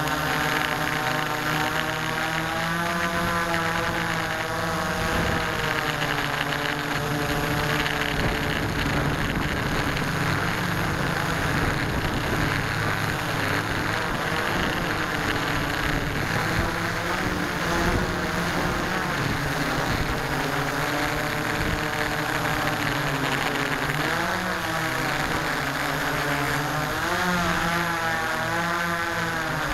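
Hexacopter's six electric motors and propellers heard from a camera mounted on the craft in flight: a steady multi-tone drone whose pitch wavers up and down as the motors change speed.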